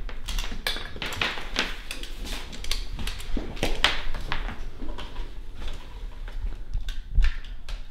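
Handling noise from an electrical cord being plugged into an extension cord and knotted together: irregular clicks, rustles and small clatters, with a louder thump about seven seconds in.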